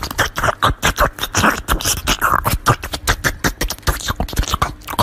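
A small dog chewing and biting into a slice of watermelon close to the microphone, making rapid, irregular wet crunching.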